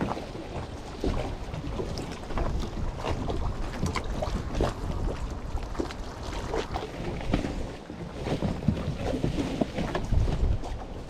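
Wind buffeting the microphone over a steady low rumble, with water slapping against a small boat's hull in irregular knocks and splashes.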